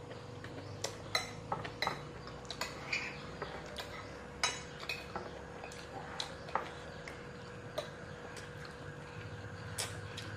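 Metal spoons clinking and scraping on plates as people eat, in scattered, irregular light clicks over a faint steady hum.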